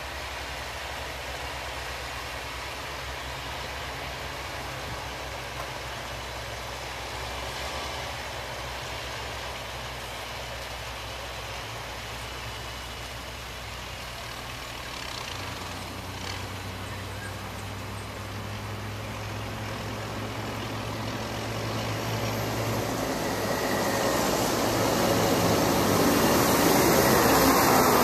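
Tractor pulling a trailed potato harvester through the field: a steady low engine drone with the machine's rushing mechanical noise, swelling louder over the last several seconds.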